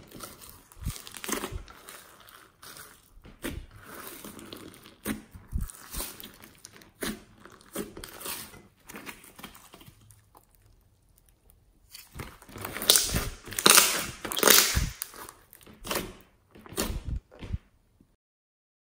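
Fluffy slime loaded with beads and glitter being squeezed and stretched by hand in a glass bowl: irregular crackles, clicks and squishes. It goes quieter about ten seconds in, then a louder run of crackles follows, and the sound stops shortly before the end.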